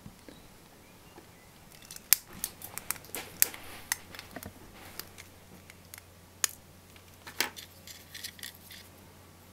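Flush side cutters snipping the excess component leads off the back of a freshly soldered circuit board: a run of sharp snips and clicks, starting about two seconds in and ending about seven and a half seconds in.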